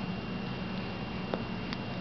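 Room tone: a steady hiss with a low hum and a thin high whine, and two faint clicks in the second half.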